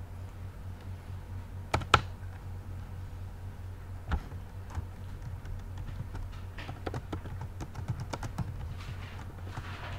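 Typing on a computer keyboard: two sharp clicks about two seconds in, a single one about four seconds in, then a quick run of keystrokes about two-thirds of the way through, over a steady low hum.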